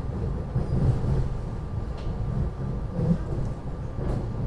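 SEPTA Regional Rail passenger car running on the track, heard from inside the car as a steady low rumble.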